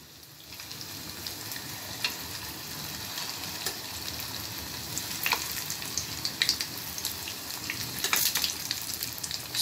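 Breadcrumb-coated bread and cheese balls deep-frying in hot oil in a kadai: a steady sizzle with scattered sharp crackles.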